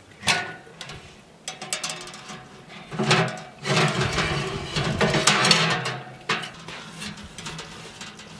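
Steel Nurgaz tent stove being handled: metal knocks and clicks, then a few seconds of louder metal scraping and rattling as its firebox door is opened and a hand works inside, tailing off into lighter knocks.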